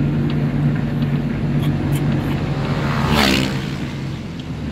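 Car engine and road noise heard from inside the cabin while driving, a steady hum. About three seconds in there is a brief louder sound that falls in pitch, and after it the engine hum settles lower.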